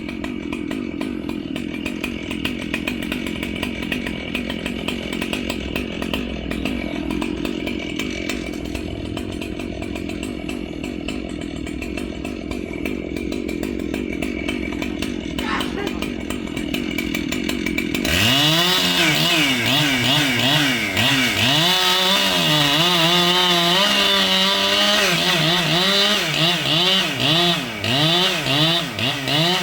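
Two-stroke chainsaw running at a steady high speed. About two-thirds of the way through, a louder chainsaw takes over, revving up and down again and again with its pitch rising and falling, then winds down near the end.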